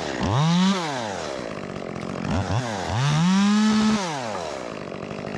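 Ported Echo 25T top-handle chainsaw's small two-stroke engine revving up twice, the pitch rising and falling back each time, the second rev held about a second before dropping toward idle.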